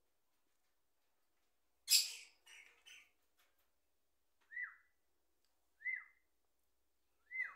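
A brief rustling burst about two seconds in, then three short whistled calls about a second and a half apart, each a quick rise and fall in pitch.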